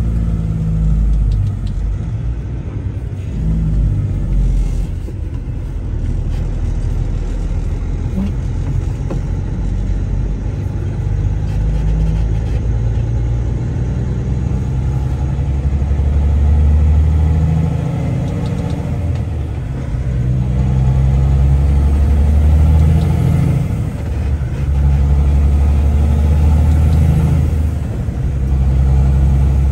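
Heavy truck's diesel engine running, heard from inside the cab, a low drone that swells louder several times in the second half as the engine works harder.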